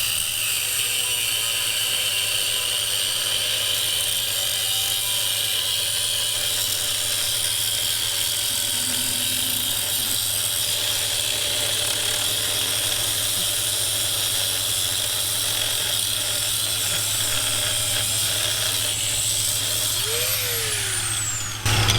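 Angle grinder with a cutting disc slicing off two seized nuts on a deck pump's mounting bolts: a steady high whine of the disc biting into the steel, which winds down about twenty seconds in.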